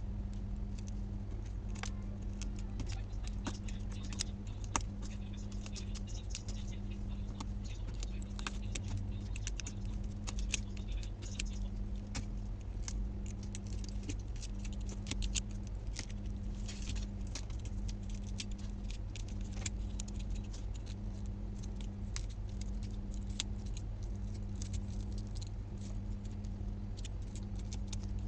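Quick, light clicks and scratches of small repair tools working on an iPhone 12 Pro Max's cracked back glass, over a steady low hum and a tone that pulses on and off about once a second.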